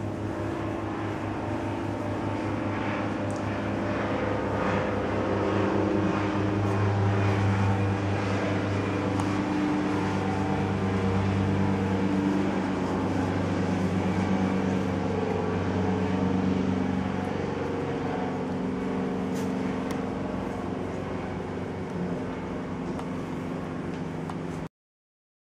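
Helicopter flying over, a steady low drone that grows louder over several seconds and then eases off somewhat.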